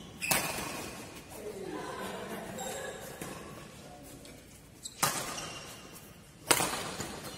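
Badminton racket strings striking a shuttlecock: three sharp cracks, one at the start, one about five seconds in and the loudest near the end, each ringing on in a large hall.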